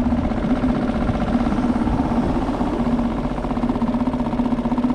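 A small motor running steadily with a buzzing hum, at one even pitch.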